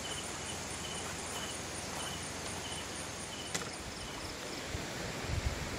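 Insects chirping in short repeated calls about twice a second, over a steady high-pitched insect drone. A sharp click comes a little past halfway, and there are low bumps near the end.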